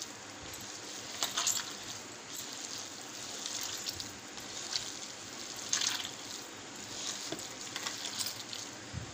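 Hand kneading raw spiced minced beef mixed with cooking oil in a bowl: irregular wet squelching and squishing, a little louder about a second and a half in and again around six seconds.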